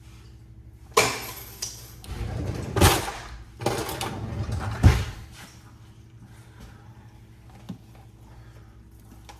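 Cookware being handled: a pan scraped and shifted for about four seconds, with two sharp knocks, the louder one near the end of the handling.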